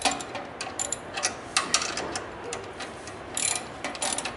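Irregular sharp metallic clicks and clinks of hand tools and fittings being worked on a bandsaw's hydraulic feed cylinder and its oil lines.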